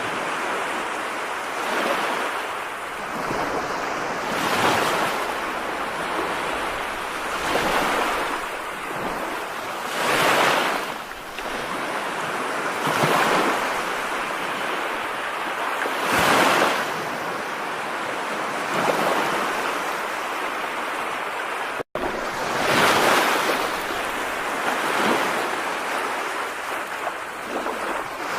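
A continuous rush of water noise that swells and fades every two to three seconds, cutting out for an instant about three-quarters of the way through.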